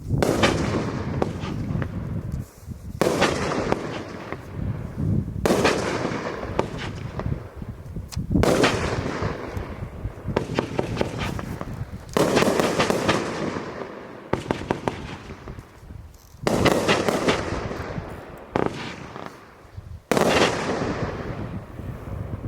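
A 500-gram 1.4G fireworks cake firing its shots: about seven loud bursts a few seconds apart, each followed by dense crackling that fades away.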